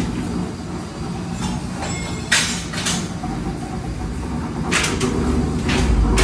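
Factory machinery running with a steady low hum, broken by a few short, sharp noises.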